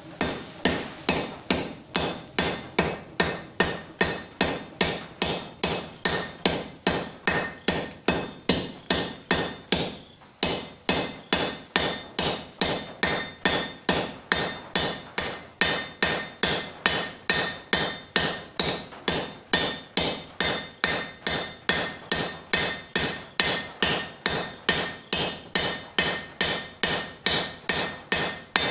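Hand hammer striking white-hot steel on an anvil to set a forge weld, in steady blows of about two to three a second, each with a short ring. The hammering breaks off briefly about ten seconds in, then carries on.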